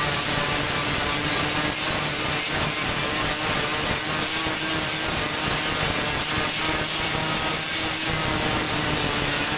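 Handheld electric angle grinder with an abrasive disc grinding the paint off a dented steel car body panel down to bare metal, throwing sparks. It is a steady, unbroken grinding noise throughout.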